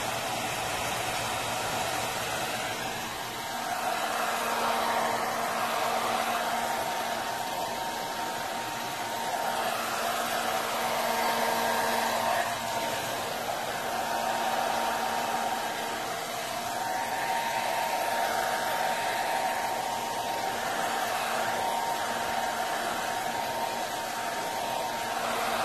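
Hair dryer blowing steadily, its motor giving a few steady tones under the rush of air. The sound swells and eases every few seconds as the dryer is moved about.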